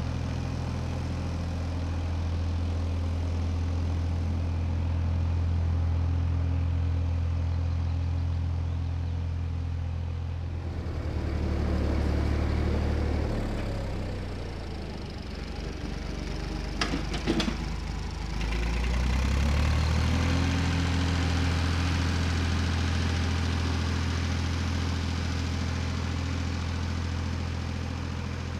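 Fordson Dexta's three-cylinder diesel engine running steadily while towing a field roller. Midway the engine note drops and then climbs back up, with a few sharp clicks, before it settles into a steady run again.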